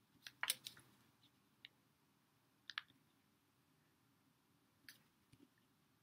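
A pen writing on paper as a signature is written: a handful of short, faint scratches and clicks, the loudest about half a second in, over near silence.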